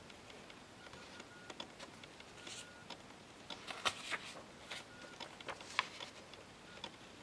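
Paper cards being handled and swapped by hand: scattered rustles and light taps, busiest in the middle as one card is put away and the next is raised.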